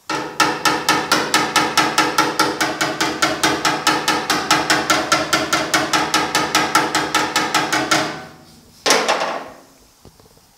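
A hammer taps rapidly on the truck cab's sheet-metal panel at the mirror mount, about five light, even strikes a second with a metallic ring, flattening a high spot so the mirror sits flush. The run stops after about eight seconds, and one last single strike follows about a second later.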